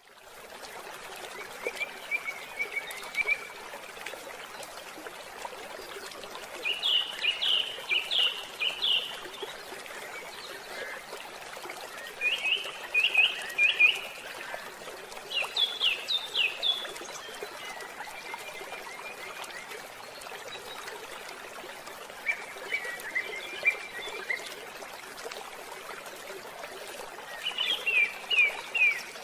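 Steady rush of a flowing stream, with bird chirping every few seconds, each a quick run of high notes.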